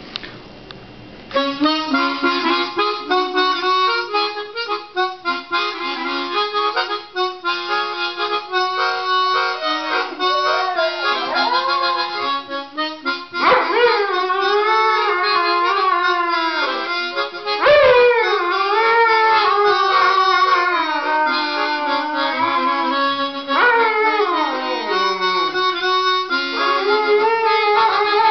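A chromatic harmonica plays a melody, starting about a second in, and an English Springer Spaniel howls along with it. The howls slide up and down in pitch, with several long falling glides through the second half.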